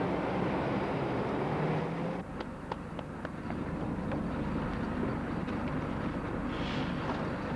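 Music dies away in the first two seconds under the steady rumble of a city transit vehicle running, which then goes on alone with scattered clicks and knocks.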